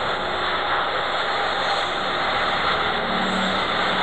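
Jet airliner engines at takeoff thrust during the takeoff roll: a steady rushing noise that holds its level throughout.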